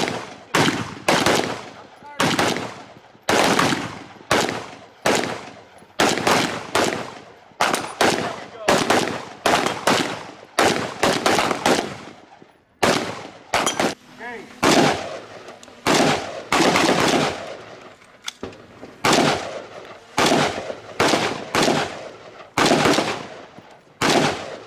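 Gunfire from several shooters firing side by side: irregular, overlapping shots about one to two a second, each with a ringing tail, stopping near the end.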